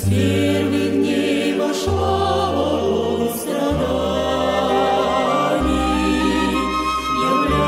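Choir singing a slow hymn in sustained chords, the low notes changing about every two seconds.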